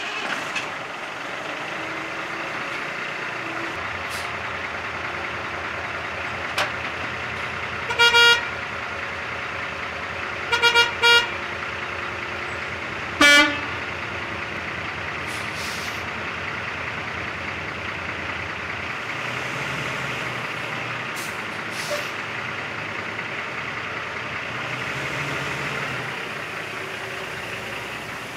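Steady mechanical noise of a truck shop, broken by short vehicle-horn toots: one about eight seconds in, three quick ones around eleven seconds, and a last one at about thirteen seconds.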